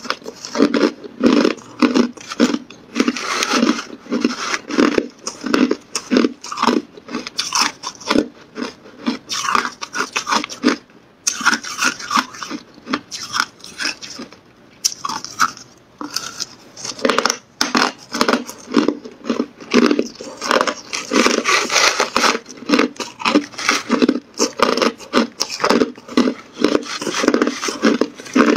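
Hard clear ice being bitten and chewed close to the microphone: a dense run of sharp, loud crunches with a couple of brief lulls.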